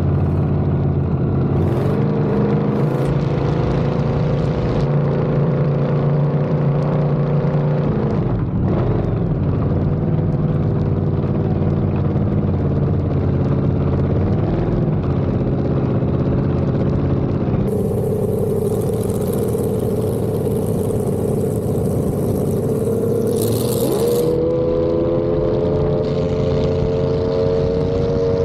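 Race boat engines running hard at speed, heard from on board. The engine note holds steady but dips and climbs in pitch a couple of times. A loud hiss lies over it for several seconds past the middle, and the pitch rises near the end.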